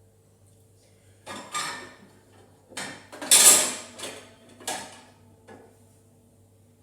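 Dishes clattering and knocking against each other in a series of sharp rattles over about four seconds, loudest about halfway through, as plates are handled.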